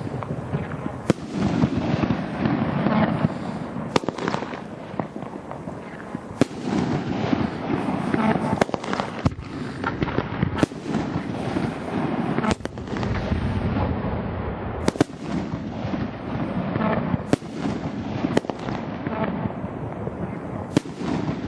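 A 500-gram consumer firework cake firing a continuous volley of peony shells: shots launching and bursting one after another, with sharp, loud reports standing out every second or two.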